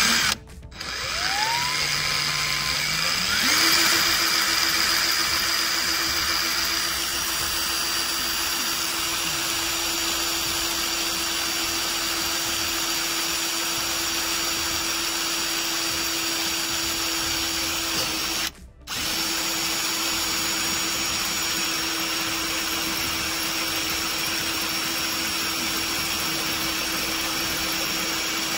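Power drill boring a twist bit through the painted metal of a Ford Bronco tailgate. The motor's whine climbs to speed about three seconds in and then holds steady, with a short break about two-thirds of the way through.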